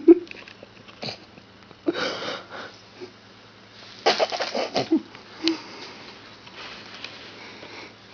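A person's breathy, wheezy vocal sounds in a few separate short bursts, with a couple of light clicks.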